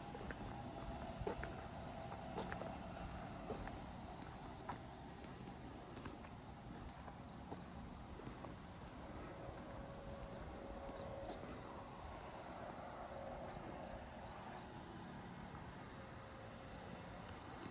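Crickets chirping faintly in a steady series of short, high chirps, about two or three a second.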